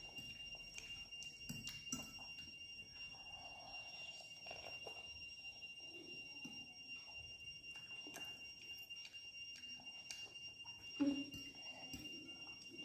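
Quiet eating at a table: faint scattered clinks of a fork and spoon against ceramic bowls, over a faint steady high-pitched tone. A short low vocal sound comes about eleven seconds in.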